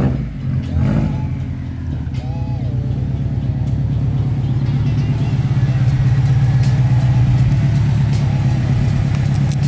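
Car engine running steadily at idle: a low, even drone with a fast pulse that grows slightly louder over the first few seconds.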